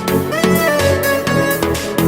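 Background music: an electronic track with a steady beat and a sustained melody line.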